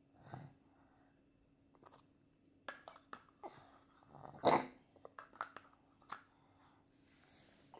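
A toddler eating yogurt: a metal spoon clicks and scrapes inside a plastic yogurt cup among wet mouth and lip sounds. The toddler gives a short vocal grunt just after the start and a louder one about halfway through.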